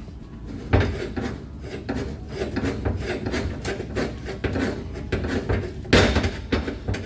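Irregular metal clanking, knocking and scraping as tools and hydraulic cylinder parts are handled. The sharpest knocks come about a second in and again near six seconds.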